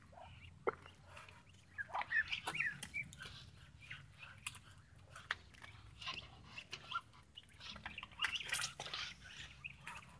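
Muscovy ducks moving close by: irregular soft clicks and taps, with a few brief faint calls.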